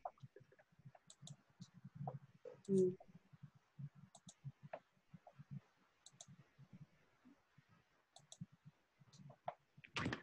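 Computer mouse clicking, several of the clicks in quick pairs, over faint low murmurs, as a PowerPoint slideshow is opened for screen sharing.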